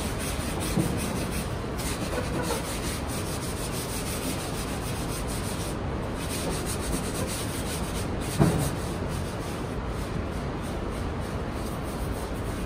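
A hand rubbing and smoothing the surface of an unfired ceramic squat-toilet pan, giving a steady scrubbing noise. There is one short knock about eight and a half seconds in.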